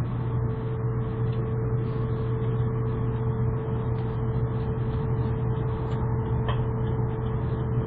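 Cabin running noise of an N700 series Shinkansen travelling at speed: a steady low rumble under an even rushing hiss. A faint steady tone holds level above it throughout.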